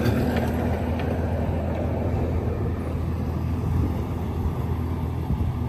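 Engine of a resort's small tourist train running steadily as it drives past, a low drone that slowly gets quieter.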